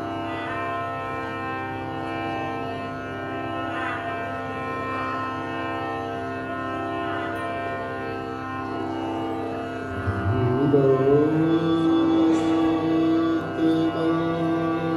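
Sikh kirtan opening: a steady drone of many held tones from the accompanying instrument. About ten seconds in, a man's voice enters, sliding up into a long held note, and the music grows louder.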